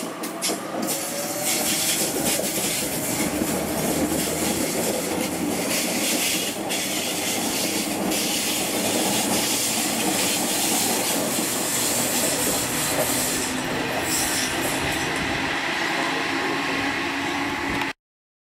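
Electric suburban train running, heard from inside the carriage: a steady wheel-on-rail rumble with a few clicks over rail joints and a faint rising whine near the start. The sound cuts off abruptly near the end.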